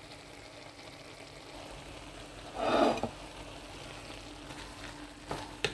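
Quiet kitchen background with a faint steady hum and hiss, broken by one short, louder noisy burst about halfway through.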